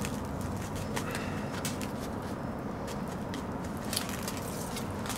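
Faint, scattered ticks and crackles as a cut-open plastic water-filter cartridge is handled and its damp ion-exchange resin granules shift and spill, over a steady low background hum.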